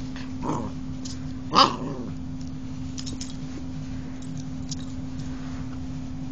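Pembroke Welsh corgi puppy barking twice, a short bark about half a second in and a louder one about a second and a half in, over the steady low hum of a small handheld electric massager running.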